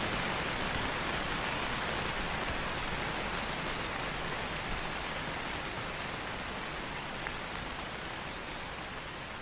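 Steady rain falling on leaves: a dense, even hiss with a few single drops ticking out of it, slowly growing quieter.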